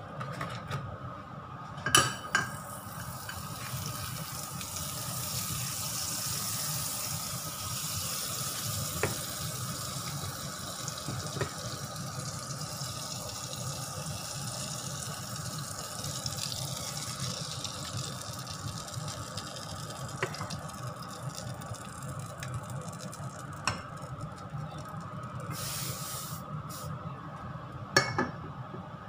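Butter sizzling and bubbling as it melts in a small nonstick frying pan on a gas burner, a steady hiss that swells and then fades. There is a sharp knock about two seconds in and another just before the end.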